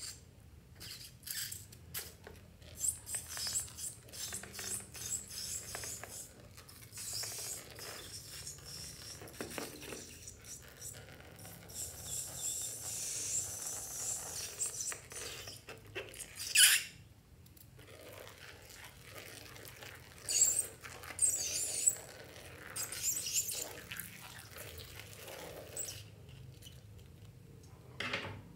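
A water balloon is snipped open with scissors, then squeezed so its liquid squirts and spills out onto a dish of shaving foam. The sound is irregular wet clicking, crackling and short hissing squirts, with one sharp loud burst about two-thirds through.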